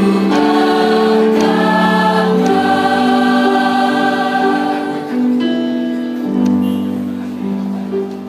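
Student choir singing a slow melody in long held notes, the chord shifting every second or two.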